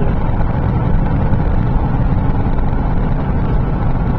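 A car driving along a road, heard from inside the cabin: a steady, low rumble of engine and tyre noise.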